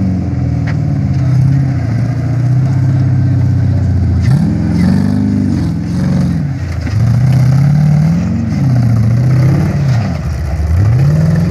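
Off-road trial buggy's engine working under load as the buggy crawls up a rocky slope. It holds a steady note for about four seconds, then revs up and back down four times in quick swells.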